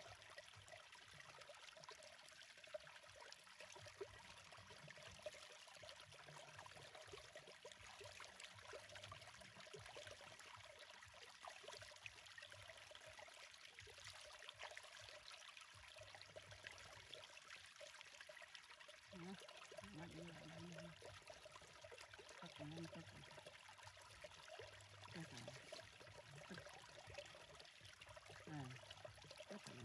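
Faint trickling and splashing of shallow paddy water as a hand dips into it, scoops and lets it run back. In the second half a few short, soft sounds rise and fall in pitch.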